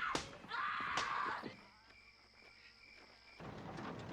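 A woman screaming in two short, high, falling cries that stop about a second and a half in. A quiet stretch follows, with a faint steady high whine.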